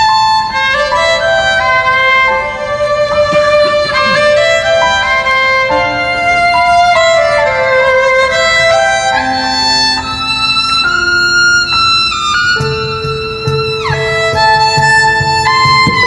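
Amplified violin playing a melody of held and moving notes during a sound check, with a falling slide on one note near the end. Low bass notes join in about three-quarters of the way through.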